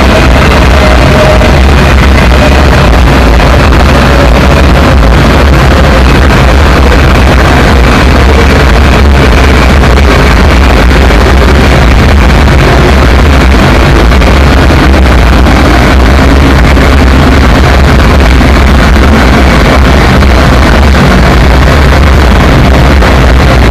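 Loud live electronic noise music played from a laptop: a dense wall of noise over a heavy, steady deep bass drone.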